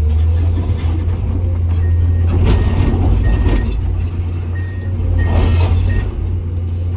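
Komatsu PC200 excavator's diesel engine running with a steady low drone while its travel alarm sounds a string of short, high beeps, about six over four seconds. Two stretches of rougher mechanical noise rise over the engine partway through.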